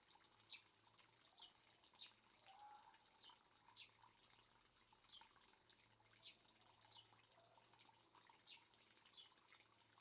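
Faint garden fish pond ambience: quick, high, downward chirps or plinks about once or twice a second, over a faint low hum.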